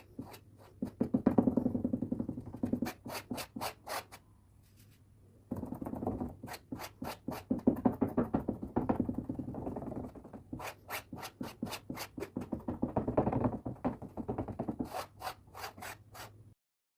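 Unboxing art supplies by hand: packaging rubbing and scraping, with many sharp clicks and taps, some in quick runs. There is a pause of about a second after four seconds in.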